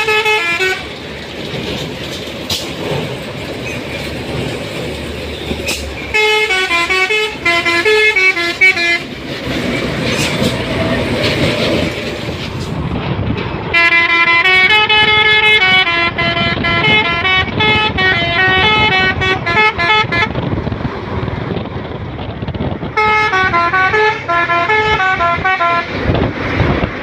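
Fuso truck's multi-tone telolet air horn playing its stepping melody in repeated runs: a short one ending just after the start, then about six seconds in, a long one from about fourteen to twenty seconds, and another a few seconds before the end, with vehicle noise between.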